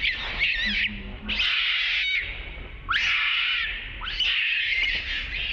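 Newborn macaque screaming in distress while its mother pins it on its back. It gives a string of about five high-pitched, wavering cries, each about a second long, with short breaks between them.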